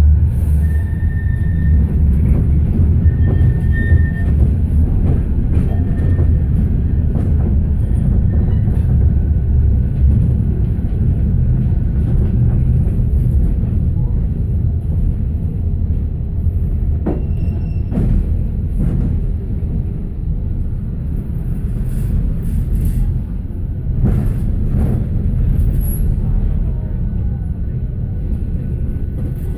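Manchester Metrolink tram (Bombardier M5000) running through the streets, heard from inside the car: a steady low rumble of traction motors and wheels on the rails. A few faint, brief high squeals come about one and four seconds in.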